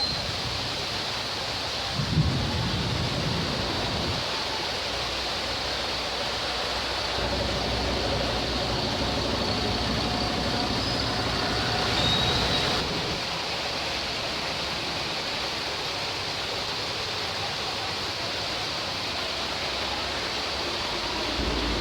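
Steady rain falling, an even hiss of water, with a brief thump about two seconds in and a low rumble through the middle.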